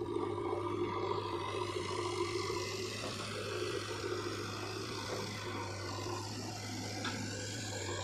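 Diesel engines of a JCB 3DX backhoe loader and a Sonalika tractor running steadily, the backhoe's engine under hydraulic load as its loader bucket tips soil into the tractor's trolley.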